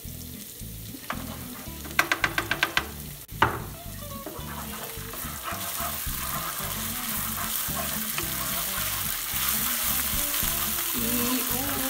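Minced garlic and ginger frying in oil with ketchup and toban djan chili bean paste, stirred and spread with a wooden spatula in a nonstick pan. The sizzle grows louder through the second half. About two seconds in there is a quick run of knocks, and a single sharp knock follows a second later.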